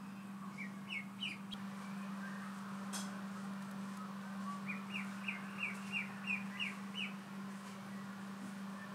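Duckling peeping: three short chirps about a second in, then a run of about eight evenly spaced peeps, roughly three a second, in the middle.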